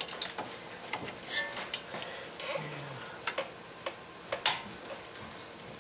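Needle-nose pliers clicking against a steel cotter pin and the castle nut of a tie rod end as the pin is fitted and bent over: scattered sharp metallic clicks at an irregular pace, the loudest about four and a half seconds in.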